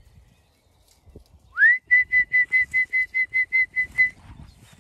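A shepherd whistling to call the ewe flock in. About a second and a half in, one note slides up, then breaks into a quick run of about eleven short, even whistles on the same high pitch, roughly five a second, before stopping near the end.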